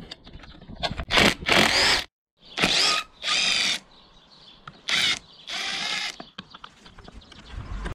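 Power drill-driver running in about six short spurts, its motor pitch rising and falling, as it spins fasteners out while the motorcycle chassis is stripped.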